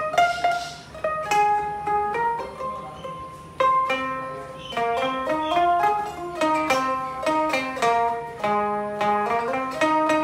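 Suzuki Kohaku CHK-1 taishogoto (fenghuangqin, a keyed Chinese/Japanese zither) played through a portable speaker, picking out a melody in bright plucked notes that ring and decay. The notes come sparsely at first and faster, with several strings sounding together, from about halfway on.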